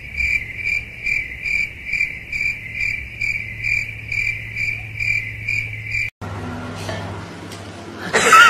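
Cricket chirping in an even, steady rhythm of about two to three chirps a second, cutting off abruptly about six seconds in. A low, quieter background follows, then a sudden louder sound near the end.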